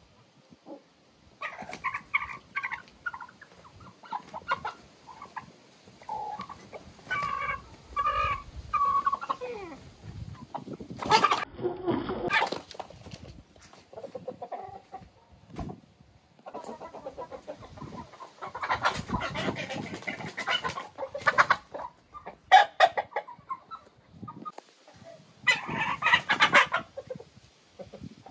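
A mixed flock of roosters and hens clucking and calling in short runs of repeated notes, with a few sharp noises in between.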